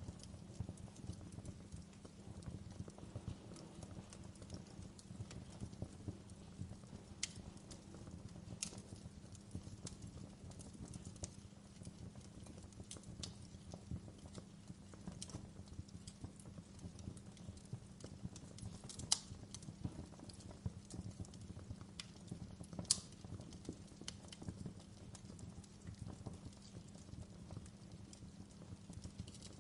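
Wood fire crackling in a fireplace: a constant patter of small crackles over a low rumble, with a few sharper pops, the loudest two past the middle.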